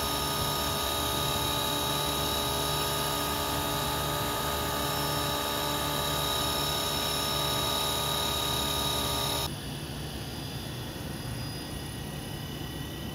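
Radio-controlled scale helicopter hovering low, its rotor and motor giving a steady whine with several fixed tones. About nine and a half seconds in the sound drops suddenly to a fainter, thinner whine.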